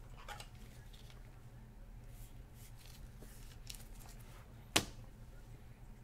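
Gloved hands handling a trading card and a rigid plastic top loader: faint plastic rustling, with one sharp click about five seconds in, over a steady low hum.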